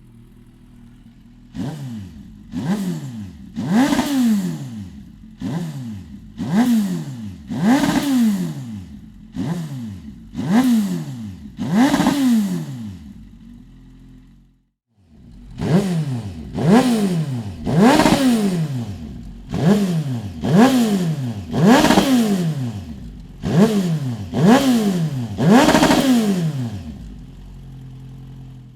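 Suzuki GSF 1250 S Bandit's inline-four engine idling and being revved in quick throttle blips, each rising sharply and falling back to idle, about one every second and a half. There is a short break about halfway through, then a second run of about ten blips.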